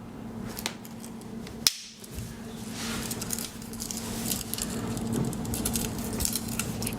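Small metallic clicks and handling noise of a Victorinox Swiss Army knife in the hand, with one sharp click about a second and a half in, then a patter of light ticks and rustling.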